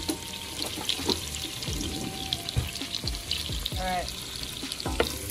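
Chopped garlic sizzling and crackling in melted butter and oil in a pot on high heat.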